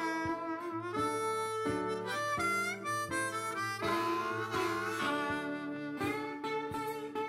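Background instrumental music: a harmonica melody of held, bending notes over plucked acoustic guitar and a bass line.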